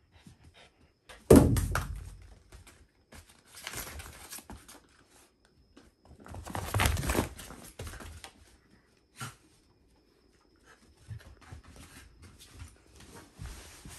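A Shiba Inu playing with a rubber ball. A loud thump comes about a second in, then two bursts of scuffling and rustling and smaller knocks as it paws the ball and moves over the mat and sofa.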